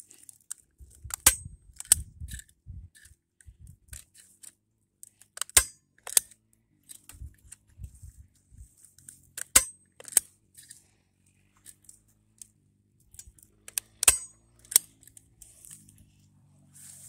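Manual staple gun driving staples through chicken wire into a wooden 1x2 board: eight sharp snaps, in pairs a few seconds apart, with handling noise of the wire between.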